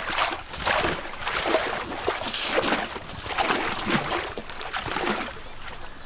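Elephants wading through swamp water and mud: repeated sloshing splashes as their legs push through the water.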